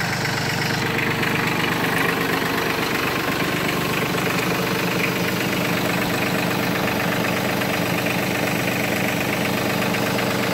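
Branson 3510H compact tractor's diesel engine idling steadily.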